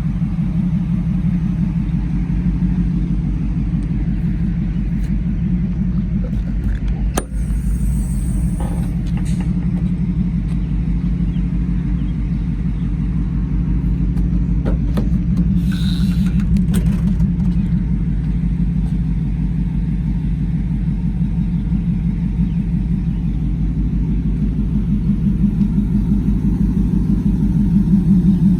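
2002 Ford Lightning's supercharged 5.4-litre V8 idling steadily, a deep pulsing exhaust rumble through long-tube headers, high-flow cats and a Bassani cat-back exhaust. A few brief clicks sound about seven seconds in and again around sixteen seconds, and the rumble grows slightly louder near the end.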